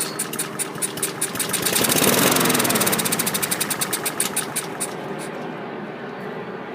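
A 2011 Honda HRR216 lawn mower's single-cylinder engine firing on a squirt of carburetor cleaner. It runs unevenly, builds up about two seconds in, then fades and dies about five seconds in. It runs only while the cleaner burns off, a fuel-delivery fault that the owner puts down to a dirty carburetor and possibly old fuel.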